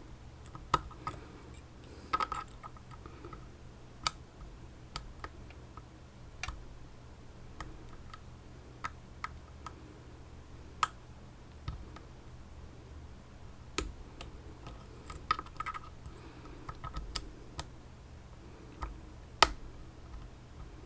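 Small metal clicks and ticks from a pick working the pins of an Elzett Seclox 11-pin dimple lock, coming at irregular intervals. There are two short bursts of quick rattling clicks, about two seconds in and around fifteen seconds, and a sharper click near the end.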